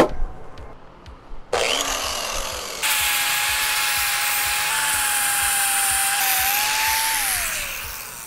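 Electric angle grinder switched on about a second and a half in, then grinding down a weld bead on a chrome-plated bumper from about three seconds in: a harsh grinding noise with a steady whine above it. Near the end it is released and winds down with a falling whine.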